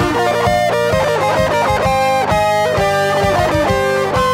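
Heavy metal instrumental: electric guitar playing a quick line of changing notes over a steady beat.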